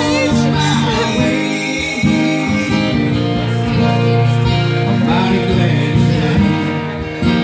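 Two acoustic guitars playing a slow country-style song live, strummed chords under a picked melody. A singing voice comes in briefly at the start.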